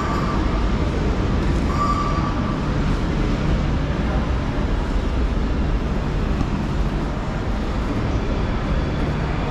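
Busy railway station concourse ambience: a steady, low hum of background noise with a faint murmur of people, and a short faint tone about two seconds in.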